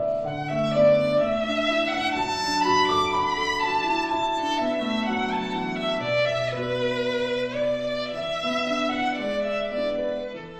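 Background music on bowed strings, a violin melody over lower sustained notes.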